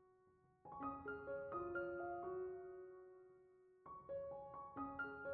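Soft background piano music: short phrases of single notes, each dying away, starting after a brief pause and again after a second lull about four seconds in.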